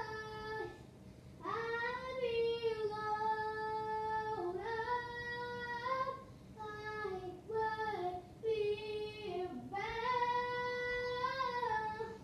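A girl singing solo and unaccompanied: a slow melody of long held notes in several phrases, with short breaks between them.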